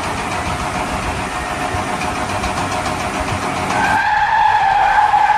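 A car sound, likely an added sound effect: a steady engine-like noise, joined about four seconds in by a held squealing tone like tyres skidding.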